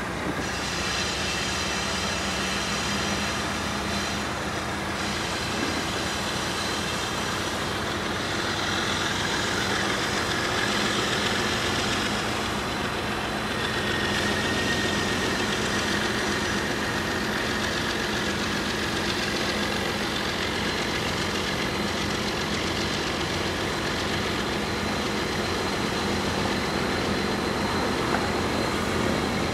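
A GE ES44AC diesel-electric locomotive leading a freight train runs as it approaches: a steady engine drone with a faint high whine, growing slightly louder as it draws near.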